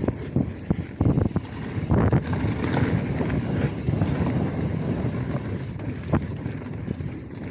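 Wind buffeting the microphone over the rumble of a mountain bike rolling fast down a dirt trail, with frequent knocks and rattles as it hits bumps.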